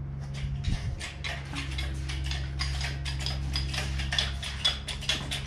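Rapid metallic clicking and clinking from an engine hoist and its chain being worked as an engine is lowered into the bay, starting sparse and growing dense about halfway through, over a steady low hum.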